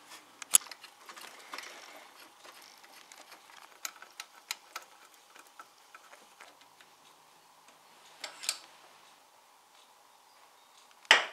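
Scattered small metallic clicks and taps of bolts and washers being fitted into an engine's aluminium camshaft housing by hand. There is a sharp click about half a second in and a loud clack near the end.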